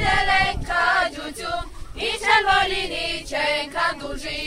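A group of children and teenagers singing together into microphones, holding sung notes and moving between them throughout.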